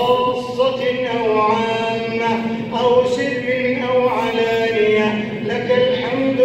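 A man's voice intoning an Arabic Qunoot supplication in a slow, melodic chant, holding long notes and moving between them without a break.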